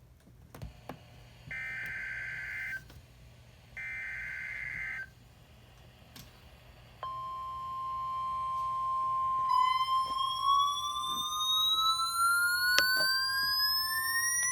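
Emergency Alert System header: two short bursts of screechy digital data tones, then the National Weather Service's steady 1050 Hz attention tone sounds from about halfway through. A couple of seconds later a second tone joins it, climbing steadily in pitch.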